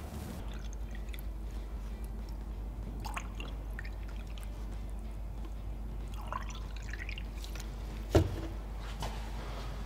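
Water poured into a Ford Crossflow cylinder head, trickling and dripping, as a leak test of freshly lapped valves. About six seconds in the pouring rises in pitch, and a single sharp knock about eight seconds in is the loudest sound.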